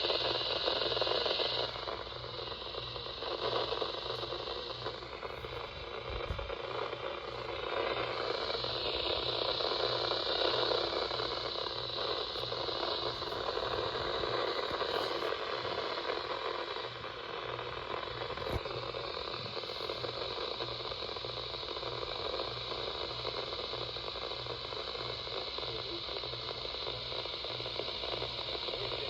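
Radio static: a steady hiss from a radio receiver with a weak signal, with a faint regular low pulsing underneath.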